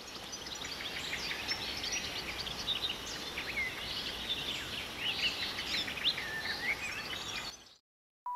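Several birds chirping and singing at once, many short overlapping calls over a steady outdoor hiss; it cuts off shortly before the end.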